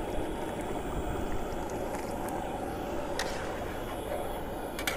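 Gas burner running on full flame under the pot, a steady rumbling hiss, with a couple of light clicks about three seconds in and near the end.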